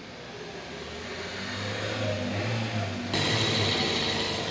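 Toyota Prius hybrid's four-cylinder, 16-valve petrol engine idling smoothly with no misfire, its tappet clearances freshly reset after sticking tappets had caused the misfiring. About three seconds in, a steady hiss joins the hum.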